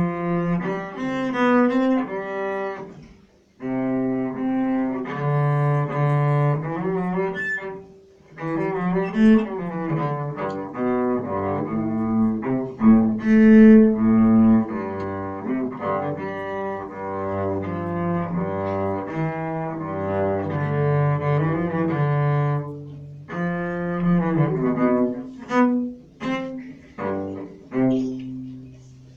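Solo cello played with the bow: a melody of mostly sustained notes moving from pitch to pitch, with brief pauses about three and a half and eight seconds in.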